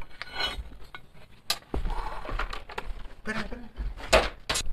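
Steel crucible tongs and a homemade crucible clinking and knocking against the steel ingot mould and its stand while molten metal is poured, a few sharp metallic clinks, two of them close together near the end.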